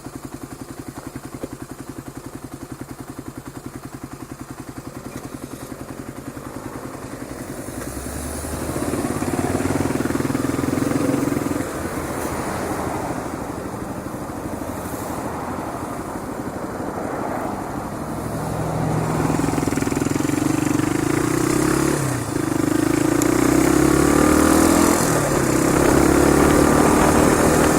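Motorcycle engine running steadily at low revs, then pulling away and accelerating, its pitch rising through the gears with brief dips at each shift.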